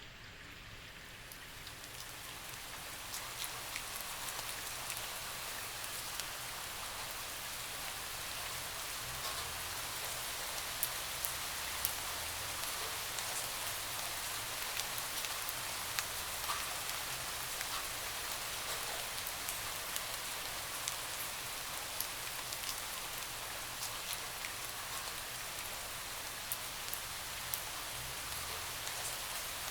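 Steady rain, with many individual drops tapping sharply over the even hiss of the downpour. It fades in over the first three seconds, then holds steady.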